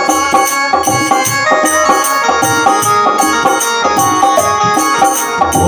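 Instrumental interlude of a Hindi devotional bhajan: a melody instrument plays sustained lines over a steady drum beat, with no singing.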